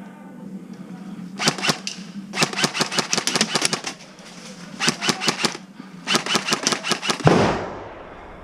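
Airsoft electric rifle (AEG) firing in four rapid full-auto bursts of sharp clicking shots. Near the end comes one louder sudden bang that dies away over about half a second.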